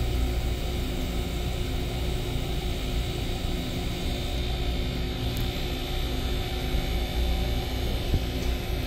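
Small R290 refrigeration unit running: a steady hum from its compressor with an airy hiss over it, as the freshly replaced coil system is charged close to its target pressures and the cooler pulls its temperature down.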